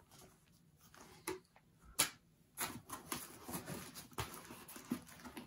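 Quiet handling of packing materials: a few sharp clicks in the first two seconds, then soft, irregular rustling of plastic wrapping as hands reach into a cardboard box.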